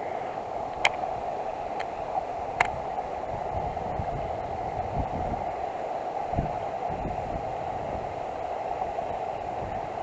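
Steady hiss of outdoor background noise, with a few sharp clicks in the first three seconds and some low thumps around the middle.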